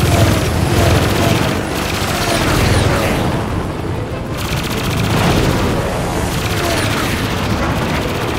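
Cartoon sound effects of an aerial dogfight: rapid, continuous machine-gun fire with booms, as toy aircraft shoot at a helicopter.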